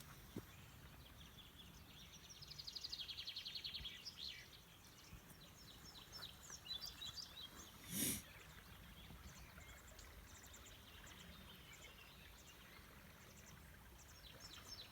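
Wild birds singing: a fast trill about two seconds in, then scattered chirps and calls over a faint low rumble. A short bump about eight seconds in is the loudest sound.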